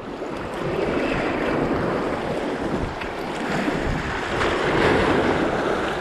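Sea surf washing against the rocks, a steady rushing noise that swells within the first second, with wind buffeting the microphone.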